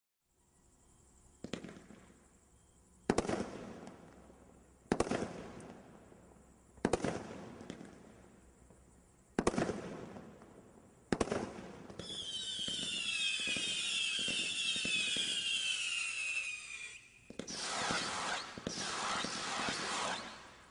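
A 200-gram consumer fireworks cake firing. Six sharp shots come one to two seconds apart. They are followed by about five seconds of a shrill, wavering whistle that falls slightly in pitch, then a few seconds of dense crackling near the end.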